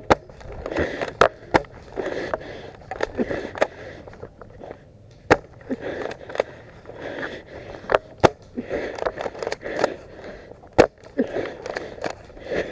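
Footsteps and rustling gear of an airsoft player on the move, broken by scattered sharp snaps of airsoft guns firing, eight or so across the stretch, some in quick pairs.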